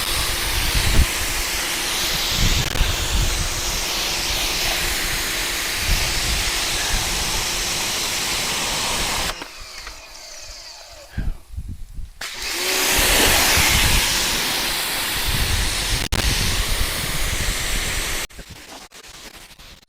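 Electric pressure washer running and spraying a high-pressure jet of water: a loud, steady hiss over a motor hum. It stops about nine seconds in, starts again about three seconds later, and cuts out near the end.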